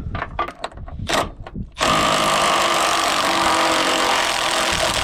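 A few clicks and knocks of tools on metal, then about two seconds in a power tool starts and runs steadily at one pitch for about three seconds, working a subframe bolt loose.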